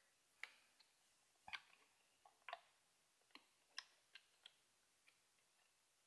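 Faint, scattered clicks and taps of alligator clips knocking against the battery compartment of a Canon Speedlite 540EZ flash as they are worked in toward the battery contacts, about nine in the first four and a half seconds.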